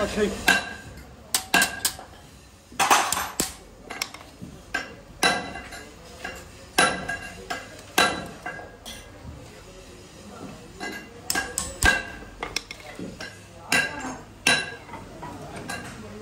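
Hand hammer striking rivets on a steel anvil block to set the rivets that fasten friction lining segments to a clutch disc. The blows come irregularly, a dozen or more, each a sharp metallic tap with a brief ring.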